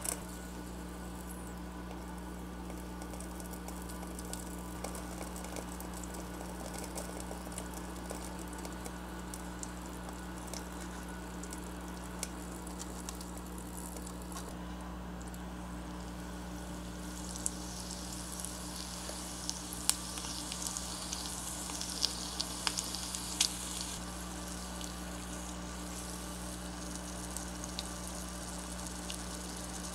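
Oil frying a tiny shrimp in a miniature clay pot: a soft sizzle and fine crackle over a steady low hum, with a louder stretch of crackling and sharp clicks in the middle.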